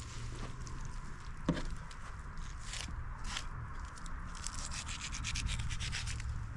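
Rubbing and scraping of a knife and hands working through a hare carcass while jointing it, with a run of small quick ticks and scrapes in the second half.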